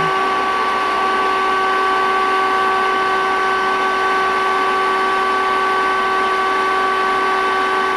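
Vacuum cleaner motor running steadily, a constant whine of several tones over the rush of air.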